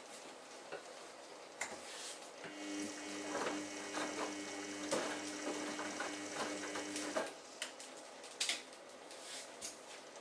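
Samsung Ecobubble front-loading washing machine tumbling wet laundry in its prewash. About two and a half seconds in, the drum motor starts a steady hum for about five seconds, with water sloshing and clothes dropping. Then the drum stops and only scattered soft knocks and drips remain.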